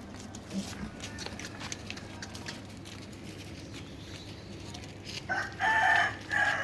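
A rooster crowing once near the end: a loud, multi-part cock-a-doodle-doo over faint farmyard background.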